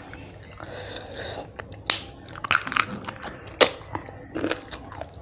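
Close-up eating sounds: a mouthful of rice and fish being chewed, with irregular wet mouth smacks, the loudest a little past the middle. There is also the soft squish of fingers mixing rice and fish by hand.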